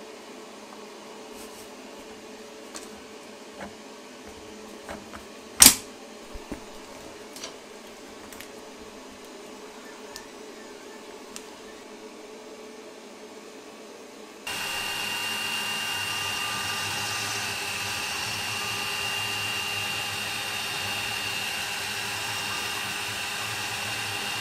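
Clear polycarbonate dust-shoe parts being handled and fitted: small taps and clicks, with one sharp loud click about six seconds in. Then, about fourteen seconds in, a CNC router spindle cutting plywood with the dust-extraction vacuum running: a steady rush of noise with a high steady whine.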